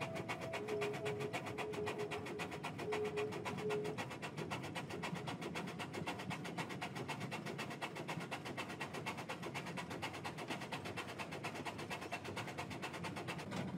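Narrow-gauge steam train running along, heard from a passenger coach: a fast, even, rhythmic beat that keeps steady throughout, with faint on-and-off tones in the first few seconds.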